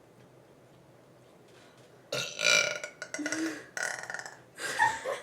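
A person burping loudly, the burps brought up by drinking orange soda: about two seconds in, a run of several short bursts.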